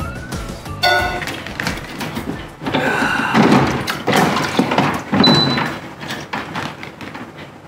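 Plastic water tank of a Honeywell ES800 air cooler being pulled out and slid back in, with plastic scraping and knocks, loudest in the middle. A short ringing clink comes about a second in.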